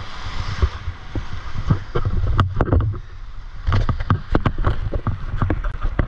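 Water splashing and slapping around a stand-up paddleboard in shallow surf, with sharp slaps that come thick and fast in the second half, over a low rumble on the microphone.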